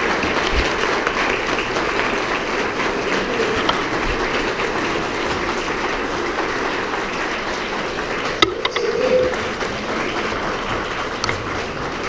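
Audience applauding, the clapping steady and easing off slightly toward the end, with one sharp click about eight seconds in.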